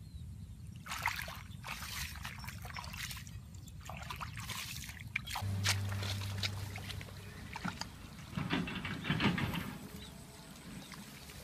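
Shallow muddy water splashing and sloshing in irregular bursts as a woven bamboo plunge basket is pushed down into it. A steady low hum comes in about halfway through.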